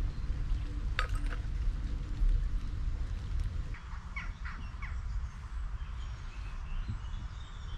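Wind rumbling and buffeting on the microphone outdoors, with a sharp click about a second in and a few short bird calls a little past the middle.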